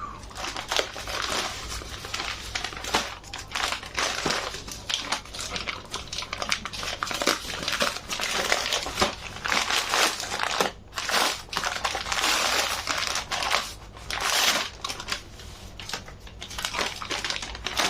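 Delivery packaging crinkling and crackling as it is handled and pulled open by hand, in irregular bursts without a break.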